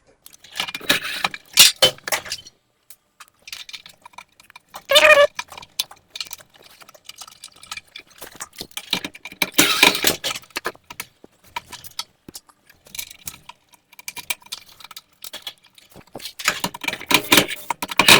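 Tools and small metal parts clicking and clinking in irregular bursts as screws are taken out and dryer thermostats are swapped on the heater housing. A brief animal cry sounds about five seconds in.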